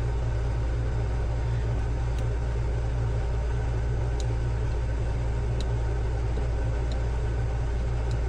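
Steady low mechanical hum, like a running motor, with a few faint small ticks scattered through it.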